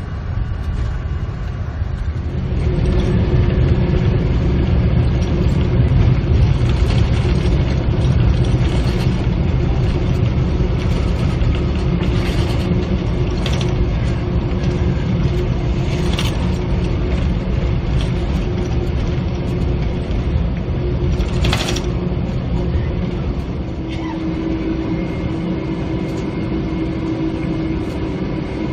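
Boeing 747-400 cockpit during the landing rollout: a continuous low rumble of engines and wheels on the runway, swelling about two seconds in and slowly easing off as the aircraft slows. A steady hum runs underneath and drops a little in pitch near the end, with a few sharp clicks along the way.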